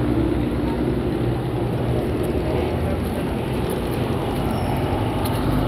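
A bus's diesel engine idling close by: a steady low drone.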